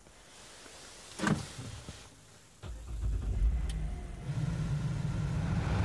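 GMC Acadia's 3.6-litre V6 engine starting by GM's factory remote start, with no key in the ignition: quiet at first, then the engine catches suddenly about two and a half seconds in and settles into a steady idle, heard from inside the cabin.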